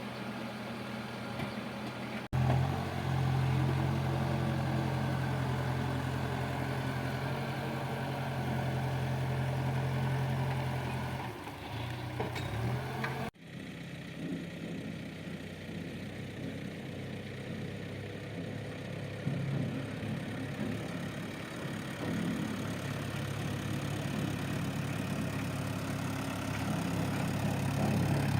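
Diesel engine of a backhoe loader and tractor at work, running steadily with a low, even drone. The engine note changes abruptly twice, about two seconds in and again about halfway through.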